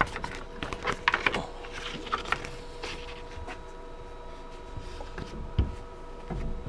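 Sharp clicks and knocks of a silicon carbide sanding belt being handled and fitted onto a KMG belt grinder, busiest in the first few seconds, over a steady faint electrical hum.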